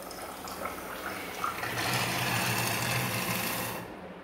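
Water forced out through a straw by the air pressure of a deflating balloon, running into a glass of water with a steady splashing trickle that swells about two seconds in and dies away near the end, over a low hum.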